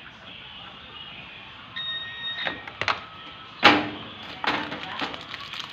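A short electronic beep lasting just under a second, followed by several sharp clicks and knocks, the loudest about two-thirds of the way through.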